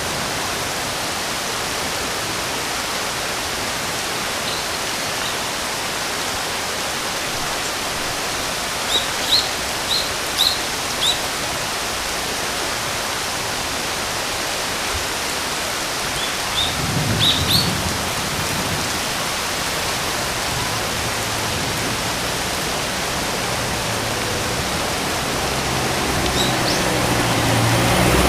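Steady rain hiss, with a bird giving short high chirps: a run of four about a third of the way in and a few more around the middle. A low rumble comes in after the middle and grows louder near the end.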